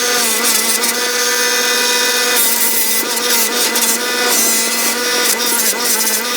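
Motor-driven buffing wheel running with a steady hum while a steel Record G-clamp is pressed against the polishing mop. This gives a scratchy rubbing hiss that swells and fades as the piece is moved around on the wheel.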